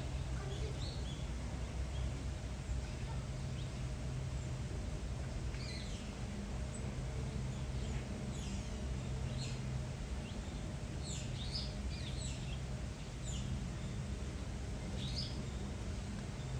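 Outdoor ambience: small birds giving short, high chirps, scattered through the middle and later part, over a steady low hum.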